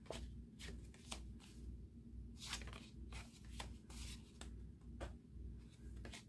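Faint rustling of a stack of thick 3x4 paper journaling cards being flipped and slid against each other by hand, in a string of short, irregular scuffs. A low, steady hum runs underneath.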